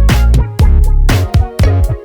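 Background music: an electronic funk-style track with a steady drum beat and heavy bass.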